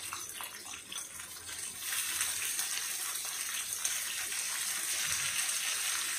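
Chicken, potato, carrot and sweetcorn sizzling in a frying pan, with a few light scrapes of tongs stirring at the start. About two seconds in the sizzle grows louder and then holds steady.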